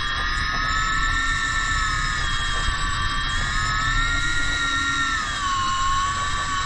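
Electric fishing reel's motor whining steadily, its pitch wavering slowly up and down and sagging about five seconds in.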